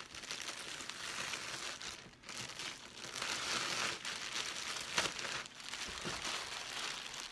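Packing foam and wrapping crinkling and rustling as it is pulled out of a model train's box by hand, with a sharp crackle about five seconds in.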